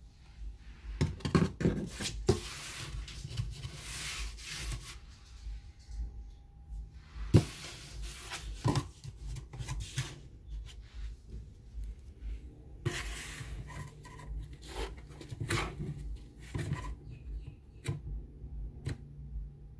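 Cardboard box rustling and scraping as a cat shifts about inside it, in several bouts with sharp clicks and knocks; the loudest is a single knock about seven seconds in.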